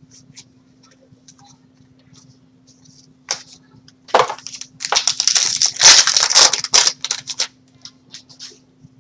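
A trading-card pack's foil wrapper being torn open and crinkled: light rustles and ticks at first, a sharp rip about three seconds in, then loud, dense crinkling from about four to seven and a half seconds, over a faint steady hum.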